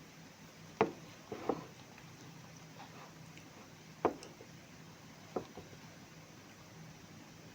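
Eating sounds from someone eating rice with sambal: a few short, sharp smacks, a pair about a second in, another around four seconds in and a softer one about five and a half seconds in.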